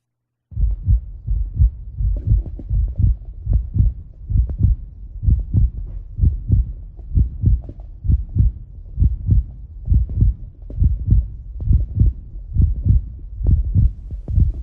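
Heartbeat sound effect: a steady lub-dub of low thuds, about one beat a second, starting about half a second in.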